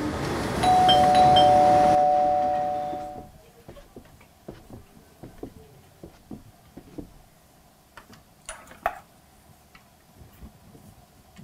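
A two-note electric doorbell chimes ding-dong, a higher tone and then a lower one held for about two and a half seconds, over train noise that cuts off about three seconds in. After it come soft footsteps and light clicks, with a louder rattle of the door latch and the door being opened near the end.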